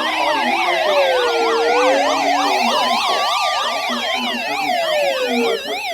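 Emergency sirens sounding together: a slow wail that falls, rises and falls again, over a fast yelp warbling about four times a second. The wail fades out near the end while the yelp carries on.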